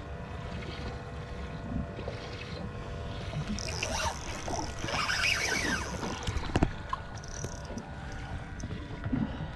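Boat on the water: a steady low rumble of wind and water with a faint hum, a few falling squeaks in the middle, and one sharp knock about two-thirds of the way through.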